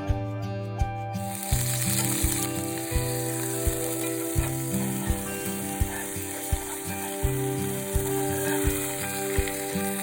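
Food sizzling in a hot pan, the sizzle starting about a second in, over background music with a steady beat.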